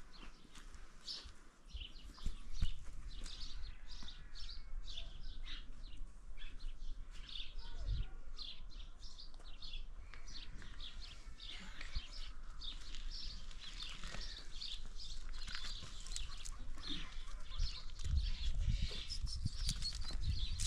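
Small birds chirping in quick, high, short notes, over and over. Low knocks and scuffs join in near the end.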